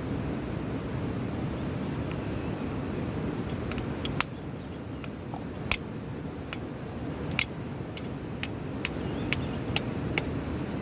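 A steady low rumble with sharp clicks about four, six and seven and a half seconds in, then a quick run of lighter ticks near the end.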